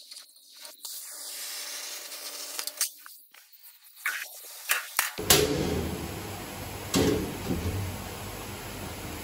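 Sheet steel plate handled and laid in place, with scattered light taps and scrapes. About five seconds in, a louder steady noise with a low hum starts, with a couple of sharp knocks.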